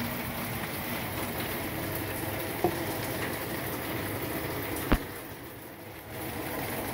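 Steady rain hiss, with two sharp knocks, the louder one about five seconds in.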